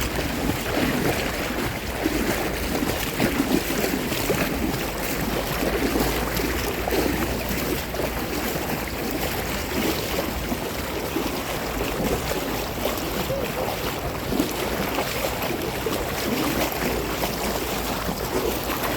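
Seawater sloshing and lapping close to the microphone, a steady irregular wash, with wind buffeting the microphone.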